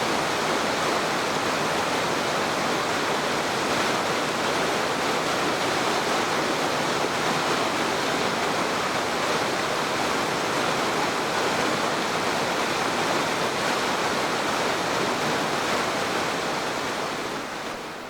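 Fast mountain stream rushing over rapids, a steady roar of water that fades out near the end.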